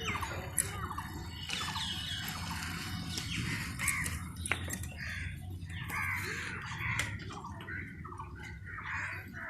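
Many birds calling, short calls overlapping one another, over a steady low rumble.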